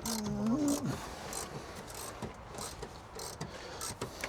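A brief hum or utterance from a man in the first second, then light, scattered clicks and rubbing of plastic trim and seat belt parts being handled.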